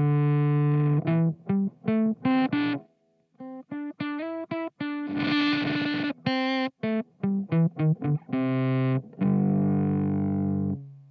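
Electric guitar with a P90 pickup through a Teisco Fuzz pedal, octave off, playing short fuzzed notes and chord stabs that cut off abruptly: the pedal's heavy built-in gate chokes each note. It ends on a held chord that dies away.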